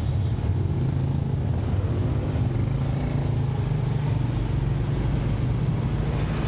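Street traffic: motorcycle and car engines running close by, with a steady low rumble.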